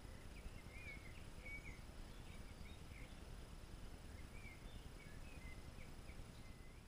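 Faint small-bird chirping, a scatter of short high twittering notes throughout, over a steady low outdoor rumble.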